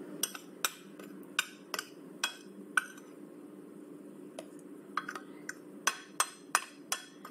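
A utensil clinking and tapping against a ceramic plate and a glass jar while a dry powdered face-mask mix is scooped into the jar. There are about a dozen sharp, irregular clinks over a steady low hum.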